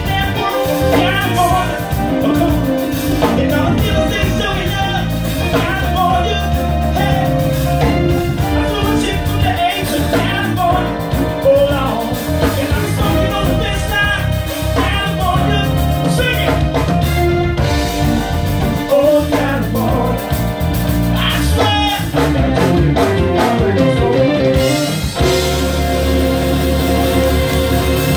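Live soul band playing: a man singing lead over electric bass, keyboard, electric guitar and drum kit. About 25 seconds in the singing stops and the band plays on instrumentally.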